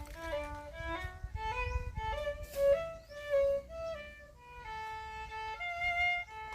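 Solo violin playing a slow melody of held, bowed notes that change pitch every half second or so.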